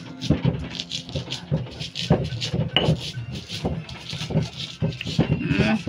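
Stone pestle (ulekan) knocking and grinding in a stone mortar (cobek), crushing chilies and greens for sambal: a quick run of sharp knocks and scrapes, several each second.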